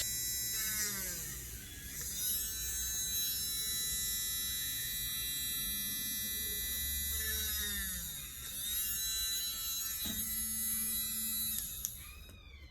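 Small USB-powered handheld electric resin drill running from a power bank, its motor whine dipping in pitch twice and recovering, as it slows when pressed into the resin. It stops near the end.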